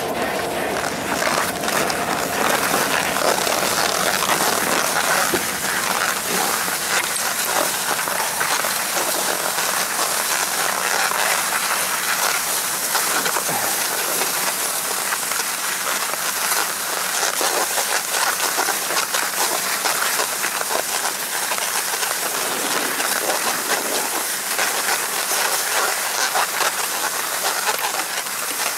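Steady rushing hiss of a ski or snowboard sliding continuously over packed, groomed snow.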